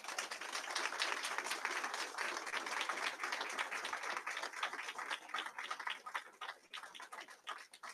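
Audience applauding: a dense patter of many hands clapping that starts at once, is fullest over the first few seconds, then thins out and dies away.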